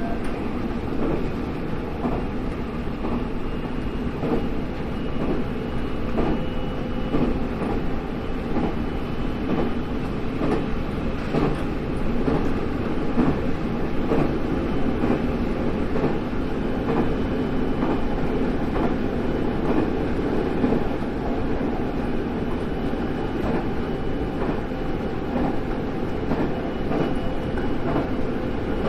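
JR Central 313 series electric train running at steady speed, heard from behind the driver's cab: a continuous rumble of wheels on rail with repeated clacks as the wheels cross rail joints, over a steady hum.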